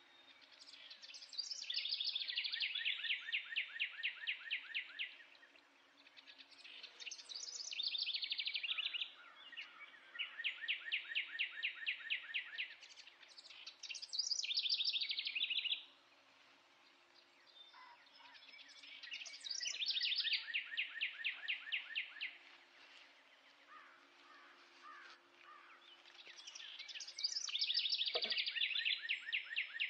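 A songbird singing the same song over and over, about six times: each begins with a few high notes and runs into a fast, even trill lasting three to four seconds.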